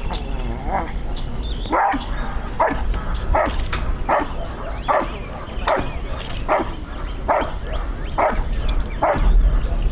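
A protection dog barking steadily at the helper it is holding in place, about a dozen sharp barks at an even pace of roughly one every 0.8 seconds.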